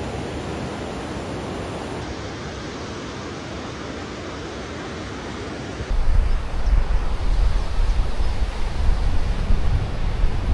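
Steady rushing wind noise on the microphone, with heavy low buffeting setting in about six seconds in and making it much louder.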